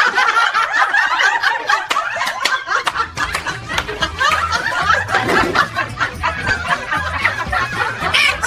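Several people laughing and snickering together in quick bursts, with a low music beat coming in about three seconds in.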